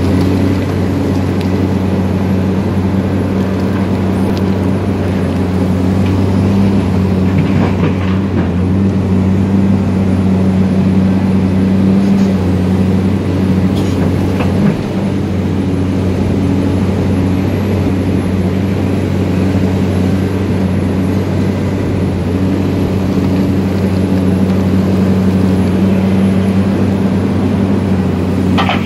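Hyundai hydraulic excavator's diesel engine running steadily under digging load, with a deep even hum and a few faint knocks.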